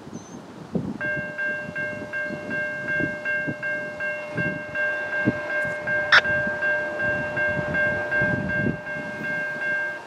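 Norfolk Southern diesel locomotive's air horn sounding one long held chord of several notes, starting about a second in and stopping right at the end. A sharp click about six seconds in.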